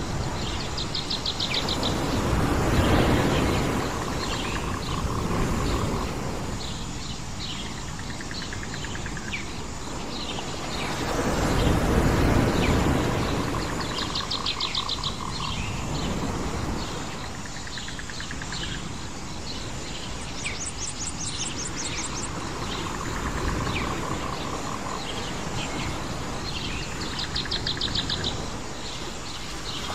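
Island nature ambience: many short bird chirps and a few buzzing, insect-like trills over a low rushing surf that swells and ebbs every several seconds.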